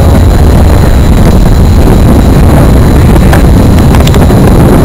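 Wind buffeting the microphone: a loud, steady low rumble, with a couple of faint clicks near the end.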